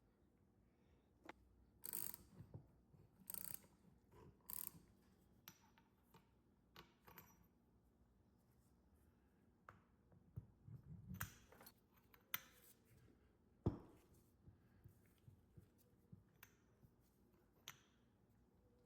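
Quiet hand-work sounds of small parts and tools being handled: scattered light clicks, taps and scrapes, with a single sharp click about two-thirds of the way through.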